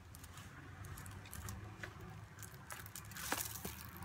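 Faint rustling and a few light ticks of a diamond painting canvas sheet being handled and lifted, over a low steady hum.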